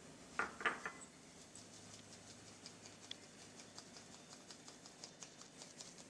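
Plastic flour sieve being shaken and tapped while sifting gram flour: three sharp knocks about half a second in, then a run of light quick ticks, about four a second.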